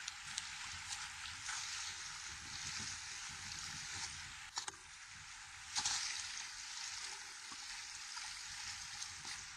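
Steady rushing outdoor hiss, with a few sharp clicks and one louder crunch about six seconds in.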